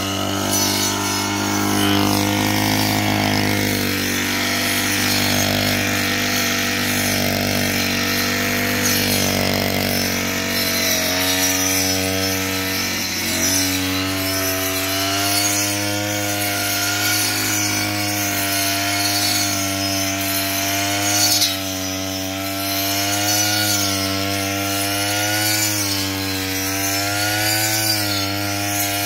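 Brush cutter engine running at high speed with a 12-inch circular saw blade fitted, cutting grass. About a third of the way in, the engine pitch starts to waver up and down again and again as the blade takes and sheds load.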